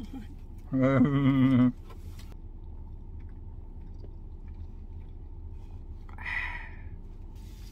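A person's voice gives a loud warbling, wavering sound about a second long, mimicking a fish's bubbling "blue, blue, blue". A shorter, softer sound follows near the end over a steady low hum.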